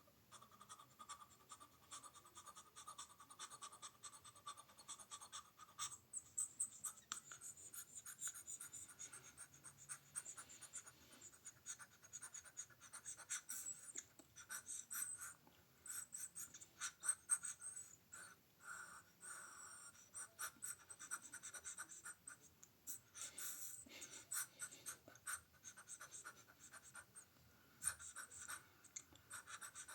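Quiet, close-miked ASMR mouth sounds: a dense run of wet clicks, pops and smacks of the lips and tongue, with a faint hiss.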